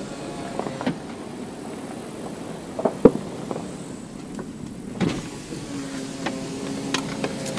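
Car driving slowly over a rough dirt road, heard from inside the cabin: a low engine hum over the noise of the tyres, with a few sharp knocks from the body and suspension.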